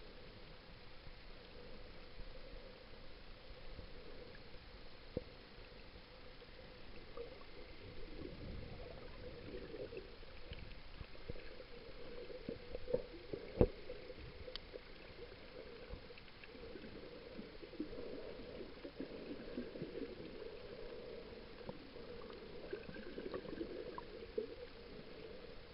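Muffled underwater sound picked up by a camera held below the surface: swishing water with scattered small clicks and crackles over a faint steady hum, and one sharper knock about halfway through.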